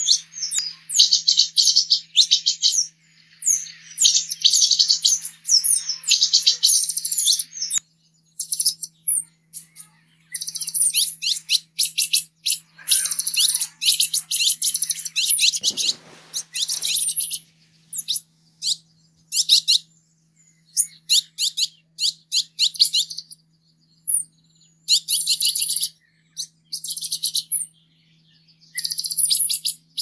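Green-headed tanager (seven-colored tanager) singing: rapid series of thin, high-pitched chirps in bursts of one to two seconds, separated by short pauses.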